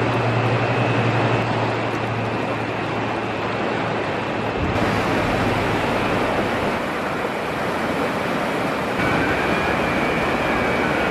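River Lune in flood: the swollen, fast-flowing river rushing as a steady, loud noise. A low hum runs under it for the first four or five seconds, then stops.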